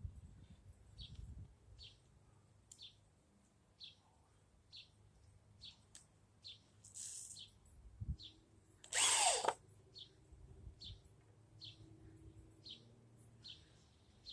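A power drill runs briefly, about half a second, roughly nine seconds in, its pitch falling as it stops. A shorter, fainter burst comes a couple of seconds earlier. Underneath, a faint high chirp repeats about once a second.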